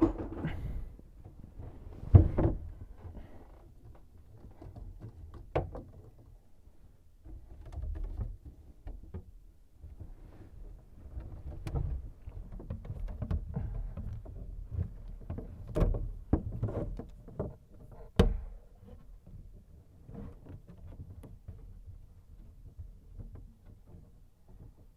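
Irregular knocks, clunks and clicks of tools and faucet parts being handled during a kitchen faucet installation, with low rustling in between. The heaviest thumps come about two seconds in and again late in the middle, and there are a few sharp clicks.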